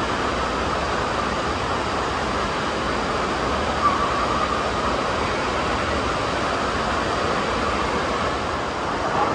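Steady rushing water and the echoing background din of an indoor water park, an even, unbroken wash of sound.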